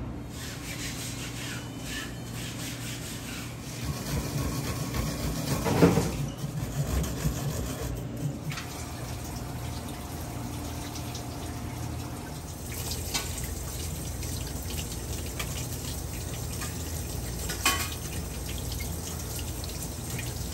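Tap water running into a stainless steel kitchen sink as sardines are rinsed and cleaned by hand. A louder knock about six seconds in, and a smaller one near the end.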